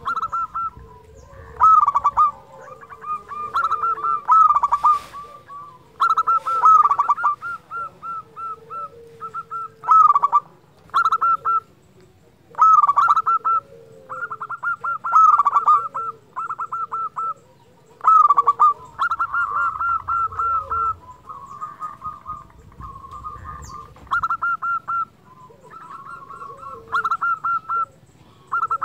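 Zebra dove (perkutut) singing its cooing song over and over. Each burst is a quick run of short, clipped notes, and a new burst comes every second or two.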